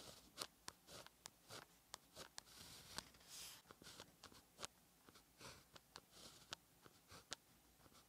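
Pen tip scratching on paper as Chinese characters are written stroke by stroke: quiet short scratches and light ticks with brief pauses between strokes, and a longer scratch about three seconds in.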